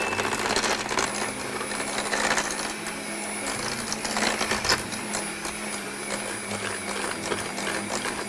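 Electric hand mixer running steadily, its beaters clattering and scraping against the stainless steel bowl as they cream soft butter with sugar.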